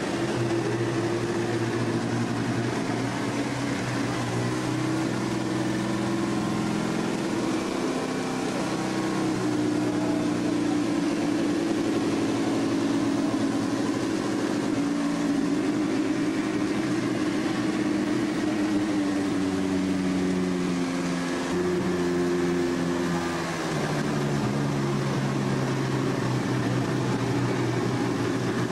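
Wooden noria waterwheel turning on its wooden axle and groaning: a loud, continuous drone of several low moaning tones that hold for seconds and shift in pitch every few seconds, over a steady hiss.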